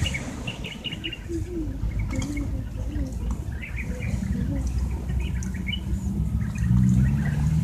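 Birds chirping off and on over a low background rumble, with a low steady hum coming in near the end.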